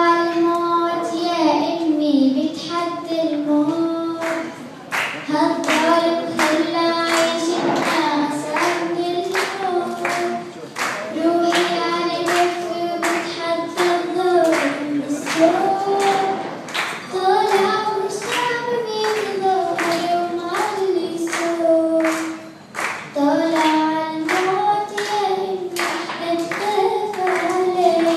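A young girl singing an Arabic revolutionary song in long held notes, with steady rhythmic hand clapping keeping time.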